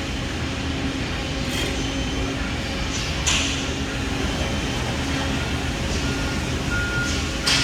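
Steady machine hum from a 2011 Amada HDS2204NT CNC press brake's drive, running while the ram waits to move, with a few short hissing bursts. A thin steady beep tone comes in near the end.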